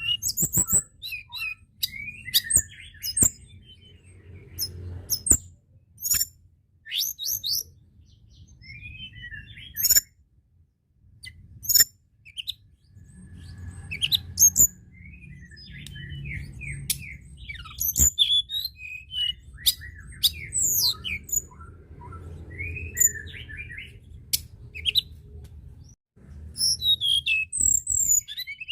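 Tledekan gunung singing: a busy run of sharp, high chirps, quick whistled slurs and short trills in scattered bursts, with a low hum underneath.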